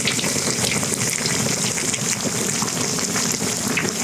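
Hot oil sizzling around a large glutinous-rice-wrapped chicken as it deep-fries, a steady, dense crackle of many small pops.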